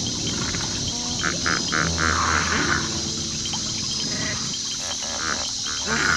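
Pod of hippopotamuses in the water grunting and honking in short repeated pulses, over a steady high hiss.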